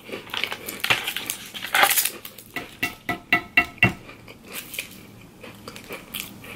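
Mouth chewing a cookie-and-cracker sandwich, mixed with crinkling and clicking as a foil juice pouch is handled and the plastic wrapper is pulled off its straw. A quick run of sharp crackles and short squeaks comes in the middle.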